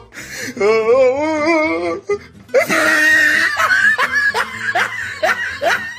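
Meme comedy sound-effect clips played back to back: wavering, laugh-like voice sounds, then a short noisy burst, then a quick run of short rising squeaks.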